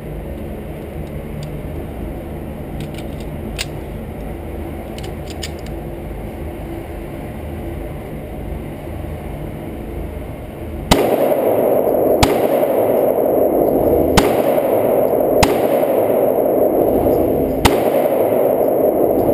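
Small clicks of a Ruger SR9C 9mm compact pistol being handled in its plastic case, then five pistol shots, the first about eleven seconds in, spaced one to two seconds apart, each ringing on in the echo of an indoor range.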